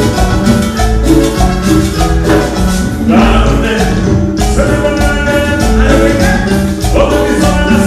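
Loud live Latin dance band music through the PA, with congas, drum kit and keyboards over a steady bass beat.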